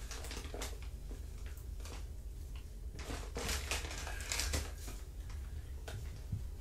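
Kittens playing: scattered light rustles, crinkles and small knocks over a low steady hum.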